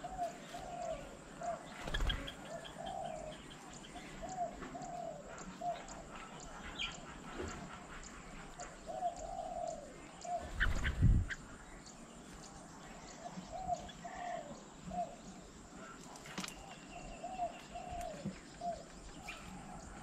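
Birds calling: a run of short, low, cooing notes repeated again and again, with scattered higher chirps over them. Twice, about two seconds in and again near the middle, a brief low rumble stands out, the louder of the two near the middle.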